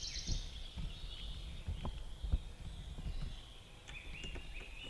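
Woodland birds singing and chirping thinly in the background, with a few short calls near the end. Several soft low thuds from the camera being handled and reframed.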